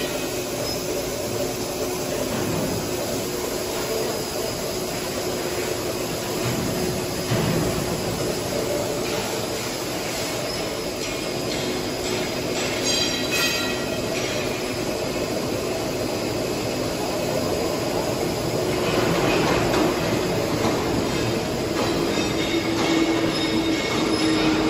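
Paper slitter rewinder running with its paper web feeding through the slitting knives and winding onto rolls: a steady mechanical whir with several humming tones. It grows a little louder about three-quarters of the way through.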